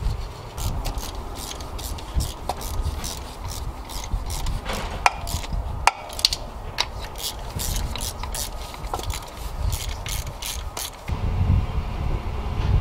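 Ratchet wrench clicking in irregular runs as the thermostat-housing bolts are run down, with a few sharper single clicks; the clicking stops about eleven seconds in.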